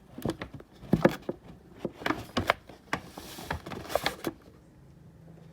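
An irregular run of sharp knocks and clicks that stops about four seconds in.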